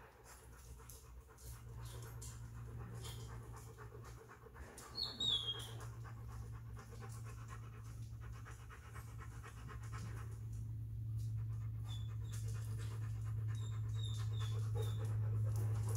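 Dog panting steadily, over a steady low hum that grows louder in the second half. A brief high squeak comes about five seconds in.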